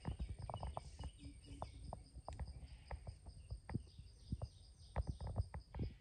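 Forest ambience: a steady, pulsing high insect drone under many irregular soft clicks and knocks, with a few faint bird chirps.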